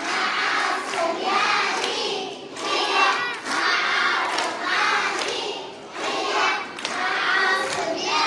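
A group of young children singing together in short repeated phrases, clapping their hands along.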